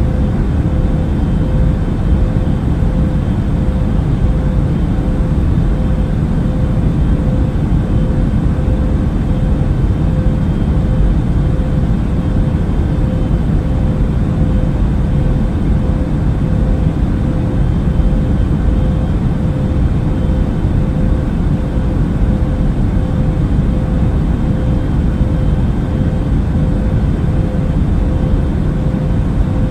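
Steady airliner cabin noise: a deep, even rush with a faint steady hum running through it.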